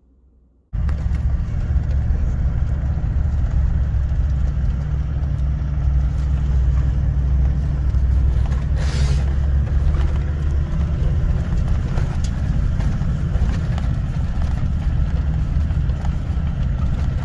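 A ute driving along: steady engine and road rumble, starting abruptly about a second in, with a brief hiss about nine seconds in.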